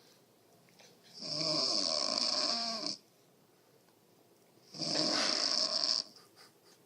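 Snoring: two long snores, the first about a second in, the second near five seconds in. Each has a strong high hiss over a wavering, rattling pitch, with quiet breathing gaps between.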